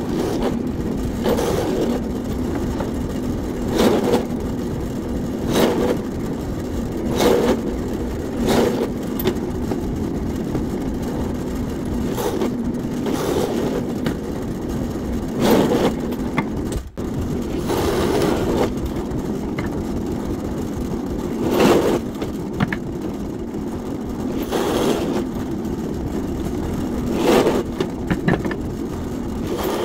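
A steady machine hum, with a short scraping stroke every couple of seconds, typical of wood being worked.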